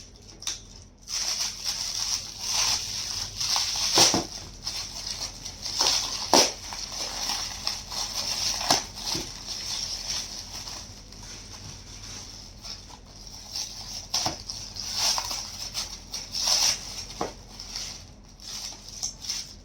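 Gift wrapping being handled and opened by hand: irregular crinkling and rustling with sharp crackles.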